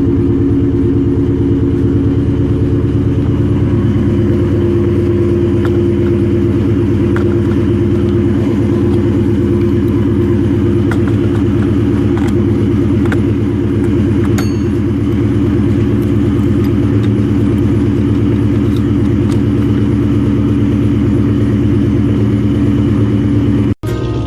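Car engine running steadily at a constant speed, an even low drone with a fast regular pulse.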